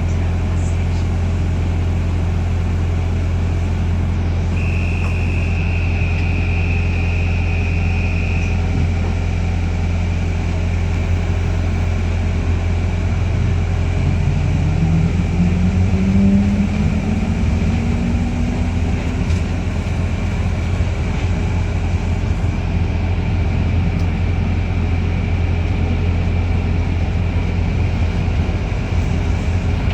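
Inside a New Routemaster diesel-electric hybrid double-decker bus: a steady low drone from the drivetrain, with a high whistling tone for about four seconds early on. From about a third of the way in, a whine climbs steadily in pitch for several seconds as the bus gathers speed.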